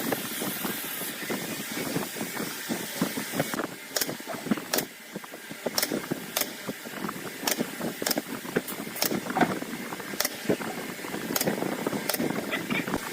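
Irregular sharp knocks and clicks over a dense, rumbling background noise.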